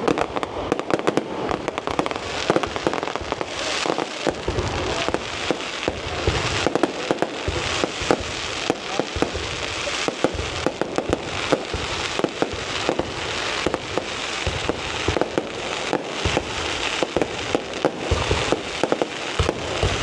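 Aerial fireworks display firing without a break: a dense stream of sharp cracks and crackling, with deeper booms coming in every few seconds.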